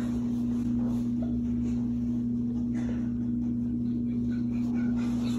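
Steady electrical hum: a constant low drone with a stronger, higher tone above it, unchanging throughout, with faint rustling over it.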